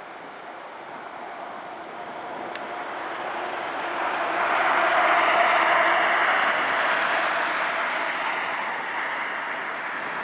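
Distant jet engine noise from a four-engined Airbus A380 on the runway. A rushing sound swells to its loudest about five seconds in, then eases off slightly.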